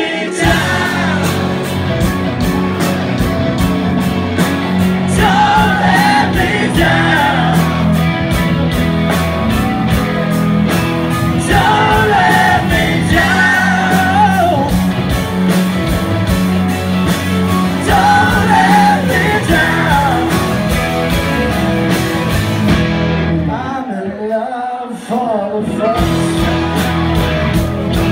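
Live rock band playing loudly, drums driving, with several voices singing together. Near the end the drums and band drop out for a couple of seconds while a voice carries on, then the full band comes back in.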